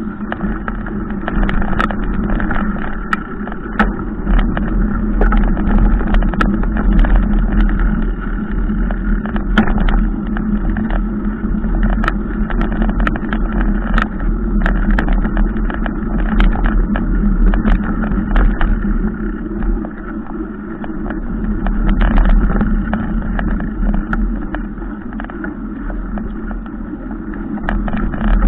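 Mountain bike riding over a rutted dirt track: wind rumble on the microphone and a steady drone, with frequent sharp clicks and rattles as the bike jolts over the bumps.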